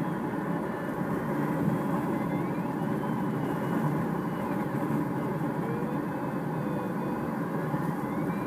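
Steady rush of airflow and drone of the tow plane's engine heard inside the cockpit of a Duo Discus glider on aerotow. A faint high electronic tone from the glider's audio variometer slides slowly up and down over it.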